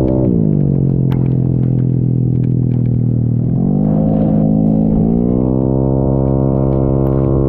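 Single-cylinder four-stroke engine of a Yamaha Mio J scooter bored out to 150 cc, heard from onboard. Its revs drop as the throttle is closed just after the start and stay low through a bend. About three and a half seconds in they climb again and then hold steady at a higher pitch.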